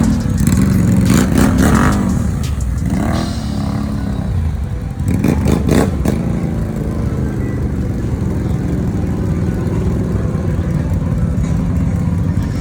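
ATV engine revving up and down for a few seconds, then running at a steady pace, with a couple of rough bumps about five to six seconds in.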